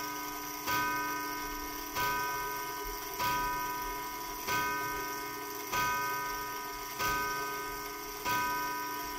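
1916 E. Ingraham mantel clock striking the hour on its gong: seven evenly spaced strokes, a little over a second apart, each ringing on with several steady tones that fade slowly until the next stroke.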